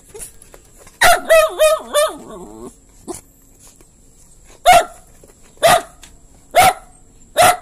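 A dog barking: a quick run of four barks about a second in, then single barks about once a second.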